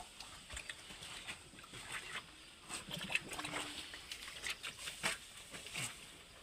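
Cows moving about and grunting, with a brief low call that falls in pitch near the end, among scattered knocks and light pattering.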